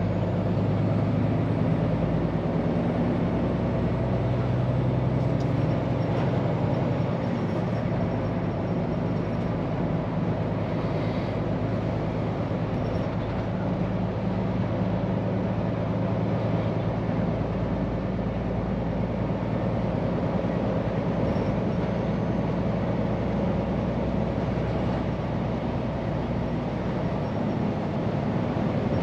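Scania P410 truck driving at a steady pace: an even, low engine drone over road noise, with no change in speed or load.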